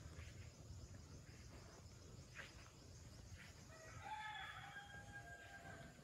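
A rooster crowing once, faintly, starting about four seconds in and lasting about two seconds, over a low steady rumble.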